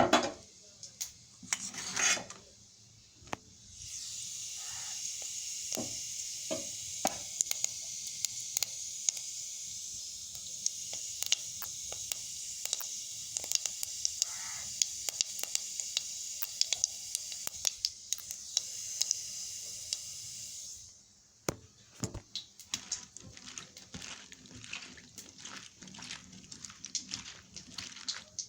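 Vegetables sizzling in a hot pan while being stirred, with a utensil clicking and scraping against the pan. The sizzle comes in a few seconds in and stops about three quarters through, leaving only the clicks and scrapes of stirring.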